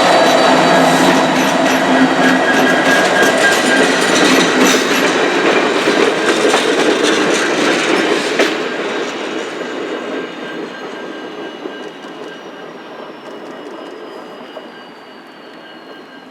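Freight train cars rolling past, wheels clacking over rail joints with a thin high squeal from the wheels. The noise dies away steadily over the second half as the train moves off.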